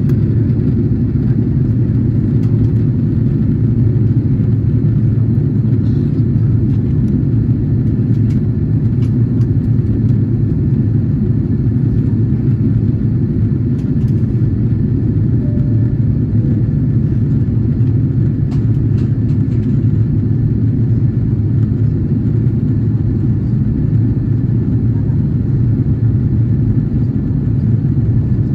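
Steady low rumble of engine and airflow noise inside the cabin of an Airbus A330-300 descending on approach, heard from a window seat beside the wing.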